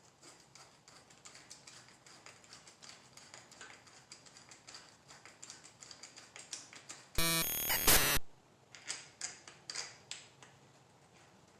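Light clicks and ticks of hand tools and small metal parts as brake hardware is fitted, growing more frequent. About seven seconds in comes a loud buzzing burst lasting about a second, followed by a few more clicks.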